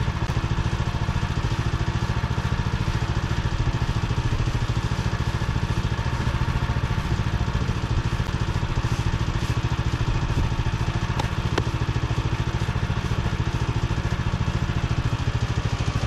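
Woodland Mills HM130Max band sawmill's engine running steadily under load as the band blade cuts along a log, a nice smooth cut.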